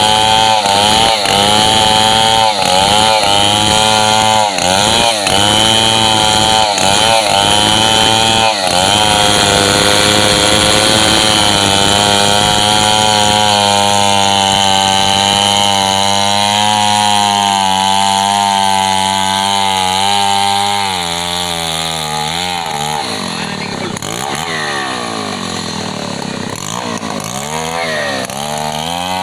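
Stihl MS 070 large two-stroke chainsaw ripping lengthwise through a gmelina log, its engine pitch dipping again and again under load for the first several seconds, then holding steady in the cut. About three quarters of the way through it drops quieter and its pitch rises and falls.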